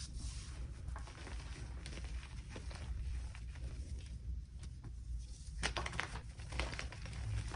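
Hands squeezing and pressing a heap of cornstarch and powder, with soft scattered crackles, then a burst of sharper crunches about six seconds in as a block of gym chalk is crushed between the palms.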